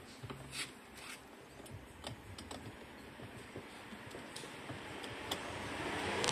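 Scattered light clicks and taps of hands and tools working at the plastic inner door panel of a Chevrolet Cobalt, around the door handle recess.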